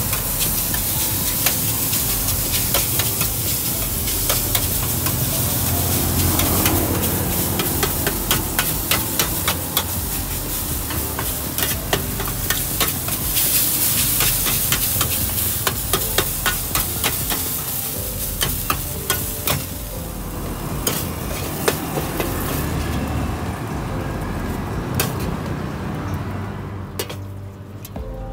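Noodles and vegetables stir-fried in a large steel wok: a metal spatula scrapes and clacks against the pan over a steady sizzle. Near the end the sizzle dies down.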